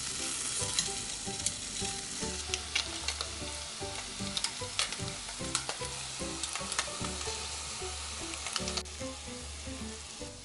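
Cubes of Spam frying in hot oil in a nonstick pan: a steady sizzle with scattered sharp crackles and pops.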